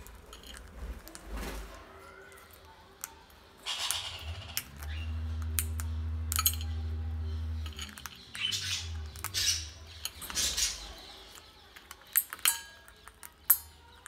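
A conure feeding from a stainless steel bowl: sharp clicks of its beak against the metal and short rattles of fruit pellets being picked through. A steady low hum runs for about three seconds in the middle.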